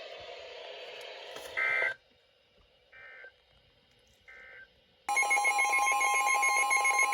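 NOAA Weather Radio broadcast signing off with three short warbling data bursts, the end-of-message code, about a second and a half apart over faint hiss. About five seconds in, several weather radios go off together: a loud steady alert tone with repeating electronic beeps over it, signalling a new severe thunderstorm warning.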